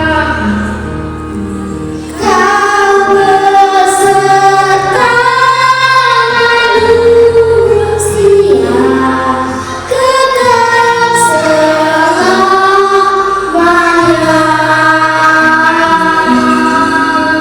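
A solo singer performing a song over instrumental accompaniment. The voice sings long held notes with vibrato in phrases, over sustained chords that change underneath.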